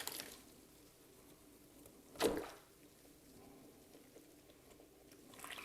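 A single short splash of water about two seconds in, with quiet either side.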